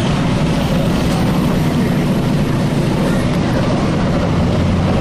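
MWM 6.10 TCA six-cylinder turbo diesel engine of a Volksbus 17-210 OD bus running steadily, its low drone holding an even pitch.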